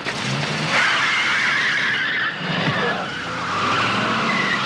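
Car tyres squealing in one long continuous screech that starts about a second in.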